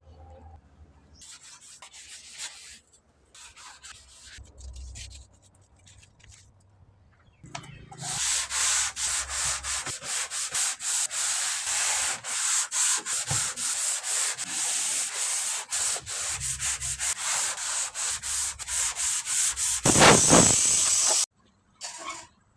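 Sandpaper rubbed back and forth over body filler on a car body panel. Faint, scattered scraping at first, then quick, even sanding strokes from about a third of the way in, which stop abruptly near the end.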